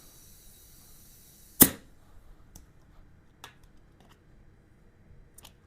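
Faint hiss of compressed air filling a motorcycle tire, cut off by one loud sharp snap about one and a half seconds in, followed by a few light clicks.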